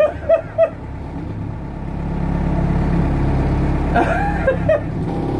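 Mercedes-Benz L-608 light truck's diesel engine running under way, heard from inside the cab, its drone growing louder about two seconds in as it pulls. Short vocal exclamations sound at the start and again about four seconds in.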